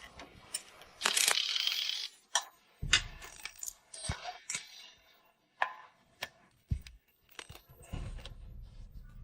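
A scattered series of light clicks and clinks of small hard objects being handled, with a brief rustle about a second in and a few low thumps near the end.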